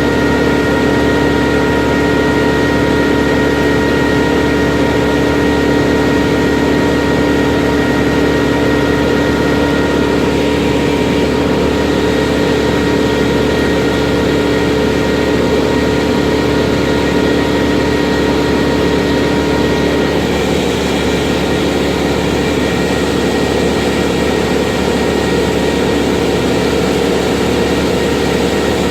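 Large engine running steadily at a constant speed, with a steady hum, its tone shifting slightly about two-thirds of the way through.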